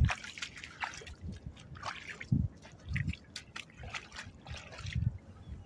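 Rubber boots wading in shallow river water at the bank: irregular splashing and sloshing, with a few dull thuds of steps.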